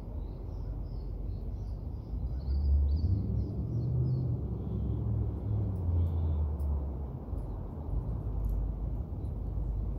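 Low rumble of motor traffic, swelling through the middle seconds, with small birds chirping in the first few seconds.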